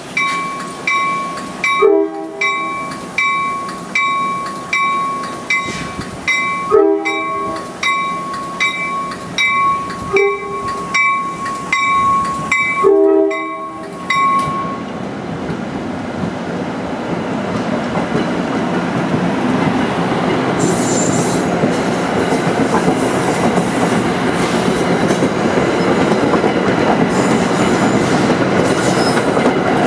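Grade-crossing warning bell ringing about one and a half strokes a second while an approaching New Jersey Transit train sounds four horn blasts, the pattern for a crossing. The bell stops about halfway through, and the passing train's wheels and cars build into a steady rising rumble.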